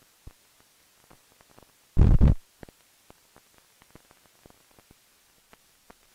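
Faint scattered clicks and crackles of an old film soundtrack, with one short, loud, low thump about two seconds in.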